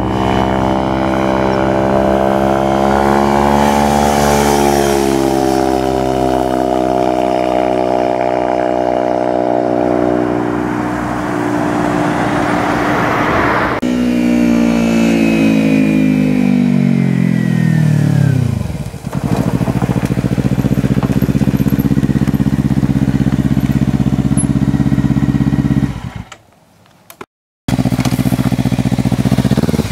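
Kawasaki Ninja 300's parallel-twin engine under way, its pitch shifting as it pulls through the revs. From about 14 s to 19 s the pitch falls steadily as the bike slows, then the engine runs steady. The sound cuts out briefly near the end.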